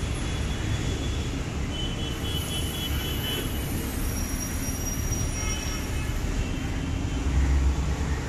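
Steady low rumble of city street traffic, with faint high tones coming and going in the middle.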